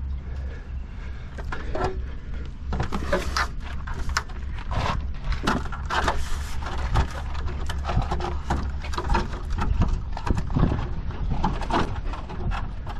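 A stepladder with metal steps being handled and moved: a string of irregular knocks, clanks and scrapes, over a steady low rumble of wind on the microphone.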